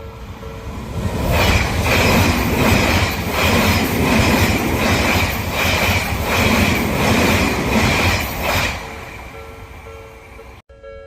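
Odakyu electric train passing close by at speed: rising rumble, then a rhythmic clatter of wheels over rail joints about twice a second with a steady high squeal, fading after about eight seconds. The level-crossing warning bell rings under it, heard plainly as the train arrives and again as it leaves.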